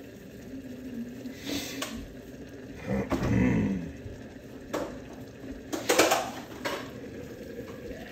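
Stainless-steel pots and kitchen utensils clinking and clattering against each other a handful of times, the loudest clatter about six seconds in.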